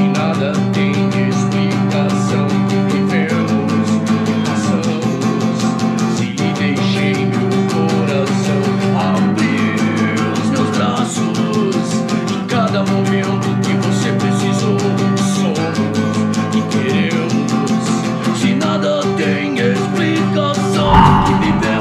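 A man singing in Portuguese to acoustic guitar, over sustained low accompaniment. A brief thump sounds near the end.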